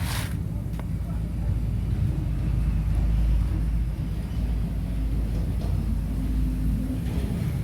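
Steady low rumble, with a brief hiss right at the start.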